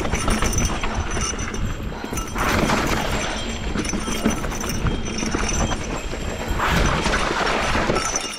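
Esker Japhy single-speed mountain bike rolling fast over a rough dirt trail, its tyres crunching and the bike rattling with quick irregular knocks. It gets louder in two stretches, about two and a half seconds in and again about seven seconds in.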